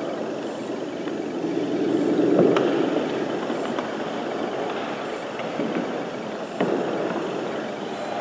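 Sound-art piece playing through the hall: a steady low noise, swelling a little about two seconds in, with sharp clicks about two and a half and six and a half seconds in.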